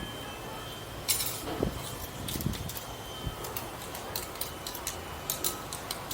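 Mitsubishi 4G64 four-cylinder engine idling as a steady low rumble, with scattered sharp clicks and clinks and a short scraping burst about a second in.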